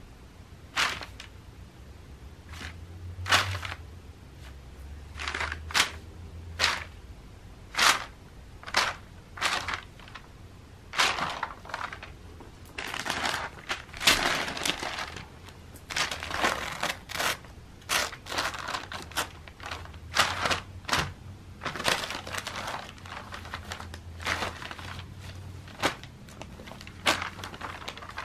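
Glossy advertising flyer paper crinkling and rustling as cats paw, bat and dig at it, in irregular sudden rustles, some quick and some drawn out, busiest around the middle.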